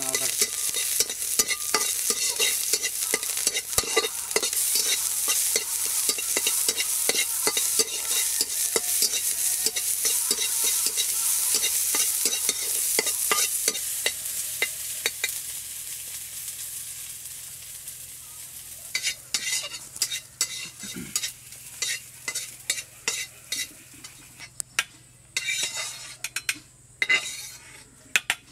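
Chopped garlic sizzling as it fries in a metal kadai, stirred with a steel spatula that scrapes and clicks against the pan. The sizzle fades about two-thirds of the way through, leaving separate spatula clicks and scrapes.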